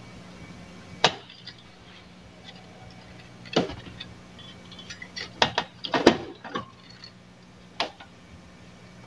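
Sharp clicks and taps of small hand tools being handled and set down on a workbench, one about a second in, another near the middle, a quick cluster of several a little later and a last one near the end, over a steady low electrical hum.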